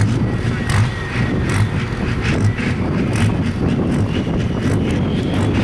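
A tractor-pulling tractor's engine running loud and steady under throttle, with a rhythmic pulsing, as it starts its pull against the sled.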